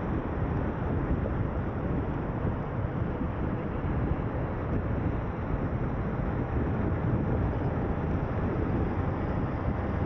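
Steady road and engine noise of a car being driven, a constant low rumble with no distinct events.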